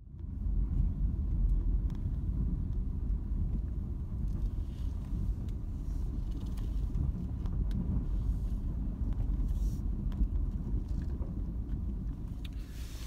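A vehicle driving slowly down a dirt lane, heard from inside the cabin: a steady low rumble of engine and tyres, with a few faint ticks.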